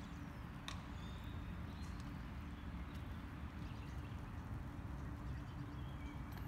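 Low, steady rumble of wind buffeting the microphone outdoors, with a single sharp click about a second in and a few faint bird chirps.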